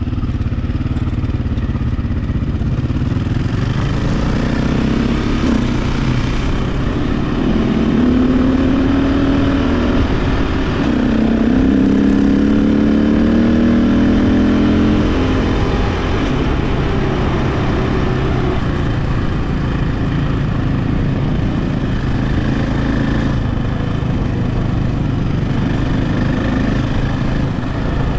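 KTM 520 dirt bike's four-stroke single-cylinder engine running steadily while riding. About a third of the way in it revs up and climbs in pitch, holds higher revs for several seconds, then eases back to a steady pace.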